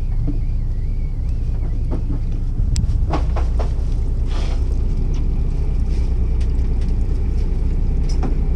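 Fishing boat's engine running with a steady low drone, with some wind on the microphone; the drone gets a little louder about two and a half seconds in. A few short clicks and knocks come about two to three and a half seconds in.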